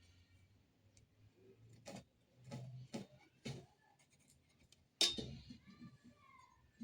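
A few light knocks and taps of hard objects being handled and set down. The loudest comes about five seconds in, followed by a short ringing.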